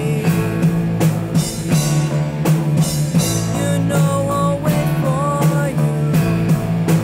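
Rock band playing an instrumental passage: a drum kit keeps a steady beat under bass and guitars, with a lead guitar line of bent, wavering notes.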